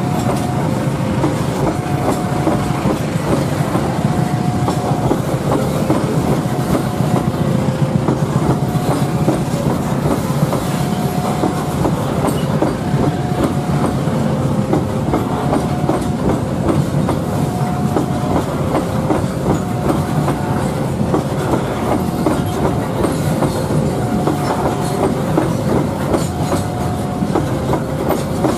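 Freight train of tarpaulin-covered flat wagons rolling steadily past, a continuous rumble and clatter of wheels on rail. In the background, a two-tone warning signal repeats, alternating high and low.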